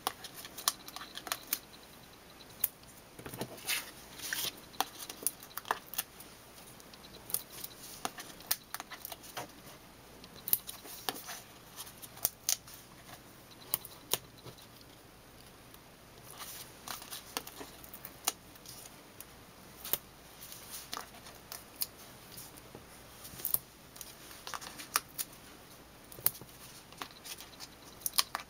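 Irregular small clicks and light rustles of hands handling paper craft materials: foam adhesive pop dots being peeled off their backing sheet and pressed onto a cardstock panel.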